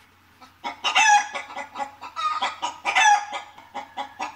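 Chickens calling: a run of loud squawking calls, each falling in pitch, with quick clucks between them.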